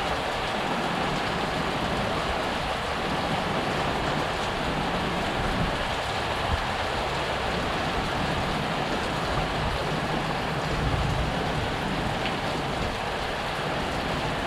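Steady rush of heavy rain and running floodwater, an even continuous wash with no breaks.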